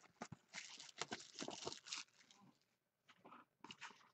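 Faint rustling, crinkling and clicking of trading-card packs and cards being handled and flipped through, with a lull of about a second midway.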